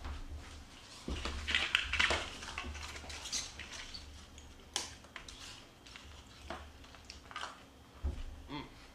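Metal spoons clinking and scraping against ceramic soup bowls as two people eat, with a few scattered sharp clicks.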